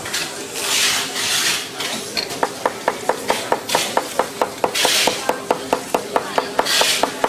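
Rapid, even mechanical clicking like a ratchet, about six clicks a second, starting about two and a half seconds in, with short bursts of scraping or rubbing noise.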